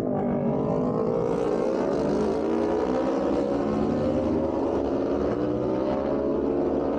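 A group of racing motorcycles coming down the straight, several engines running together, their pitch climbing slowly as they accelerate.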